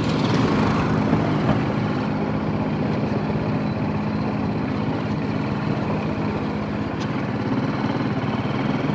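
TVS Apache RTR 310's single-cylinder engine running at low, steady revs as the motorcycle rolls slowly along.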